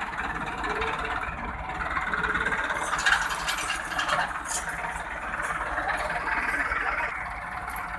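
Massey Ferguson 375 tractor's four-cylinder diesel engine running under heavy load as it pulls a heavily loaded sugarcane trolley, with rattling and a few sharp cracks about three to four and a half seconds in.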